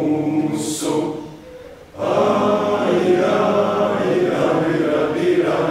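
A choir of young voices singing in Latvian in unison, with a short pause between phrases about a second in.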